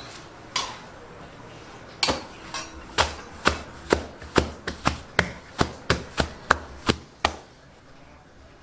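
Hands slapping and crushing freshly cooked Kerala porotta on a counter to loosen and fluff its flaky layers. One slap comes shortly after the start, then a run of about fifteen sharp slaps at roughly two a second begins about two seconds in and stops after about seven seconds.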